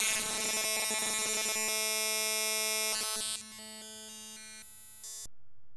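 Synthetic buzzing tone from the grainstretch~ granular external in Max/MSP run as a wavetable oscillator (speed at zero, very short grains). Its timbre shifts in steps as the playback position is moved to a different wavetable, and it turns much quieter after about three and a half seconds.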